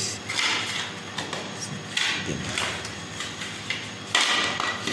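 Knocks and clatter from hands at the exposed plastic cooling fan of an electric water pump motor, as the fan and shaft are turned to check that the bearing is not seized. The loudest knock, with a short ring, comes about four seconds in.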